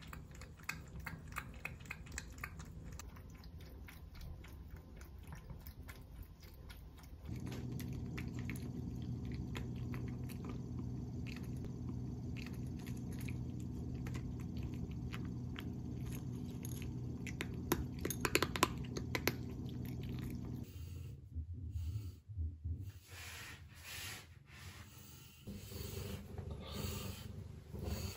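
Ragdoll cat chewing dry kibble: a quick, irregular run of small crunches. A steady low hum sits under the chewing through the middle stretch.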